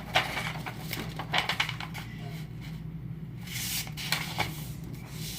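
Sheets of paper being folded and creased by hand: irregular rustling and crinkling, over a steady low hum.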